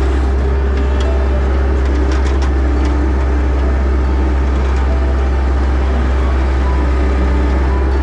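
Rice combine harvester running steadily, heard from the operator's seat: a loud, even engine drone with a deep hum.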